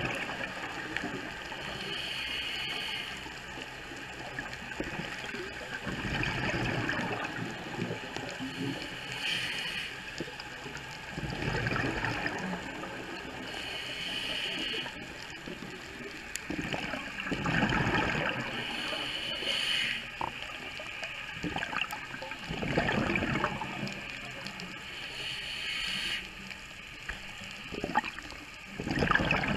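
Underwater gurgling and hissing of a scuba diver breathing through a regulator, the hiss and bubbling surges recurring every few seconds.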